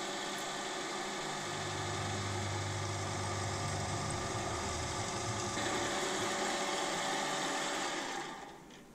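Milling machine spindle running with a twist drill cutting through the 1.5 mm wall of 25 mm steel box section, opening out an axle hole. The steady machine noise stops near the end.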